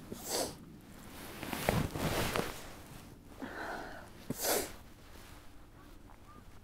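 Golf driver swung at a teed ball: a short sharp click of the strike about four seconds in, followed by a brief rushing swish. Before it come quieter swishes and knocks.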